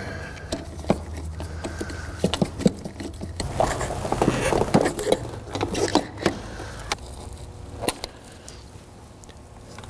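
Hand tools and fittings clicking, knocking and scraping irregularly as a fastener and connectors are worked in a car's engine bay, busiest for a couple of seconds in the middle, over a low steady hum.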